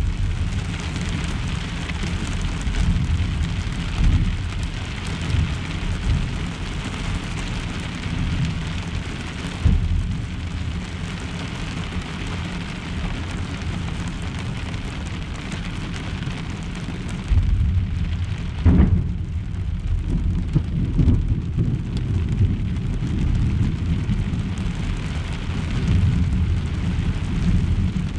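Heavy rain drumming steadily on a pickup truck's camper shell, heard from inside, with thunder rumbling low. About two-thirds of the way through, a louder clap of thunder hits and rolls on for a few seconds.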